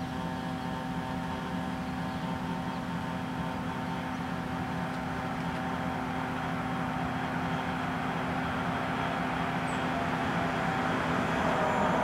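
An approaching train at a closed level crossing, a steady low hum with a rushing noise that grows gradually louder as it nears.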